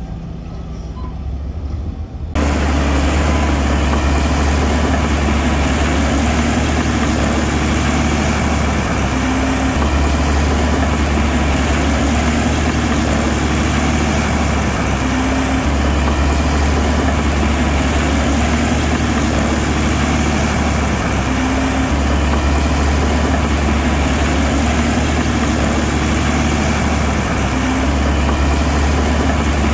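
Heavy diesel engine of an earthmoving machine running steadily, a deep drone that starts abruptly about two seconds in after a quieter opening. The low drone shifts slightly about every six seconds.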